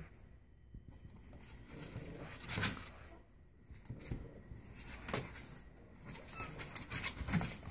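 Pug puppies scrabbling and shuffling inside a plastic kiddie pool: claws scratching on the plastic and blankets rustling. It comes in two spells with a short quiet gap between them.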